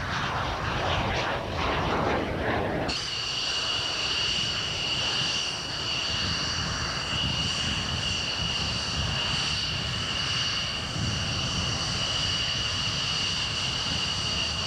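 For the first three seconds or so, a jet taking off, with wind buffeting the microphone. Then, after a sudden cut, a General Dynamics F-16 Fighting Falcon taxis close by, its turbofan engine giving a steady high-pitched whine over a low wind rumble.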